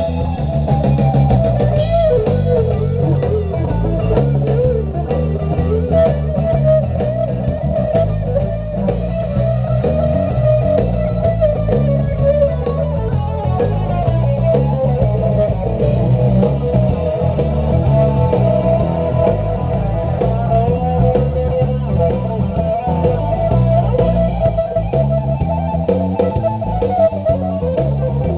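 Stratocaster-style electric guitar played live through an amplifier, a rock instrumental with steady low bass notes underneath.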